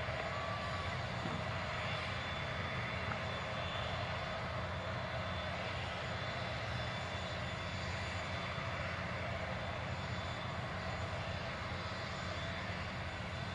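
Aircraft turbine running steadily at idle: an even roar with a thin high whine, unchanging throughout.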